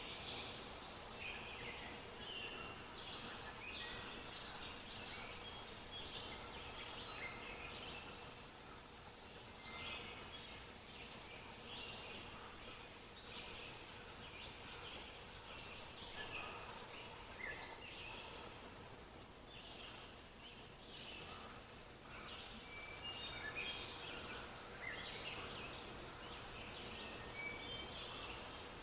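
Birdsong ambience: many small birds chirping and singing at once, short overlapping calls going on without a break, over a soft steady background hiss.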